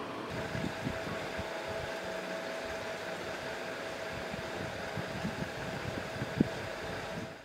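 Steady fan-like background hum with a faint steady tone, and a few soft low knocks, one sharper a little over six seconds in.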